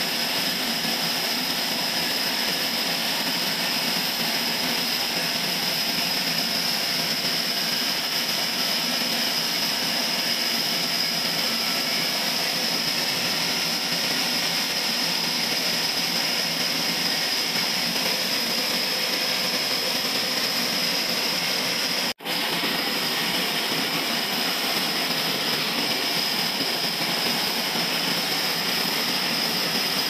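Horizontal band sawmill running and sawing through a large log: a steady, high-pitched whine over a broad rushing noise. The sound drops out for an instant about three-quarters of the way through.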